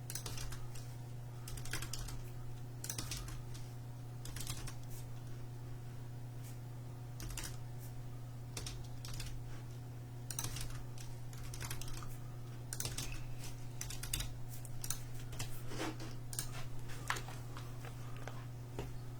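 Typing on a computer keyboard: irregular runs of keystroke clicks over a steady low electrical hum.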